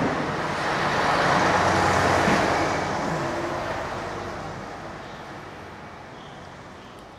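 A road vehicle passing by: its engine and tyre noise swells to a peak about two seconds in, then fades away slowly.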